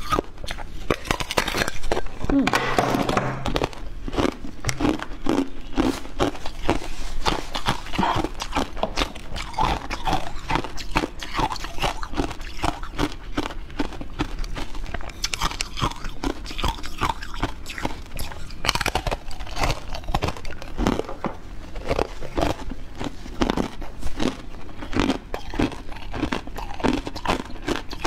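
Close-miked eating: a person biting and chewing a pineapple-shaped dessert, with dense wet mouth clicks and smacks throughout.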